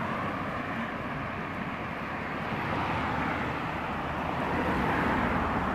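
Road vehicle noise: a steady rushing that slowly swells toward the end, as of a vehicle passing.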